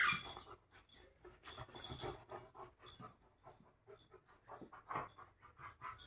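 Labrador puppy and adult Labrador playing, with quick breathy panting and short irregular scuffling noises.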